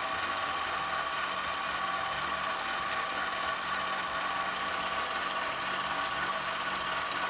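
Harbor Freight mini metal lathe running at a steady speed with an even, high-pitched motor whine while a carbide insert tool takes a facing pass across the end of a bolt spinning in the chuck.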